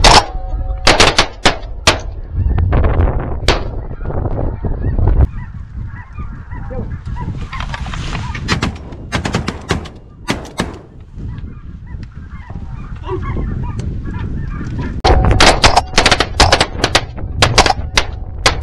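Rapid shotgun fire from several hunters in three volleys: one in the first few seconds, one around the middle and one near the end. Snow geese honk throughout.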